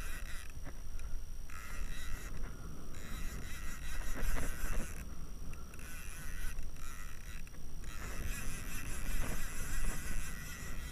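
Wind buffeting the microphone over open water, with an overhead fishing reel being cranked as line is wound in.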